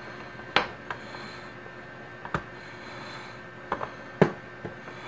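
Handling noise: a small plastic breaker enclosure and its cord being picked up, turned over and set down on a wooden table, giving about seven short knocks and clicks at uneven intervals, the loudest about half a second in and again near the end.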